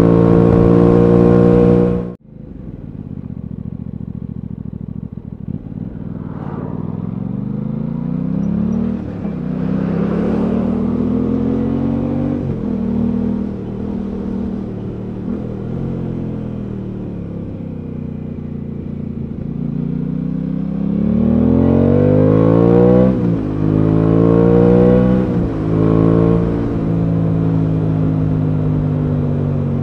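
Aprilia Tuono 660's parallel-twin engine heard from the rider's seat while riding, its pitch climbing under acceleration and dropping at each gear change. It drops suddenly in loudness about two seconds in, and near the end it revs harder, twice climbing steeply in quick succession.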